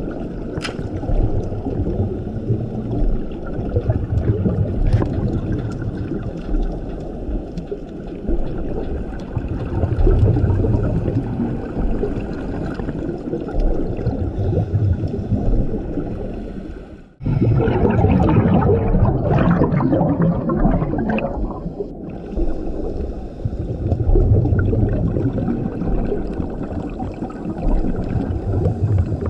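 Scuba diver breathing through a regulator underwater: a steady low rush with slow swells, broken a little past halfway by a loud gush of exhaled bubbles lasting about five seconds.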